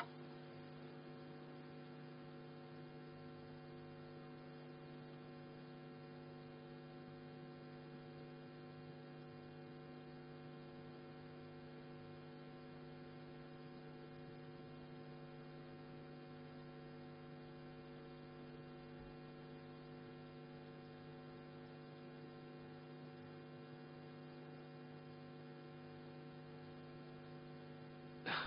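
Faint, steady electrical hum: a constant drone made of several even tones, with nothing else over it.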